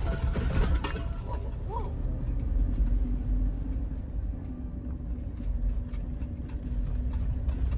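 Suzuki Jimny's engine running steadily under load with a low rumble as it drives off-road on sand, a steady engine tone holding from about two seconds in.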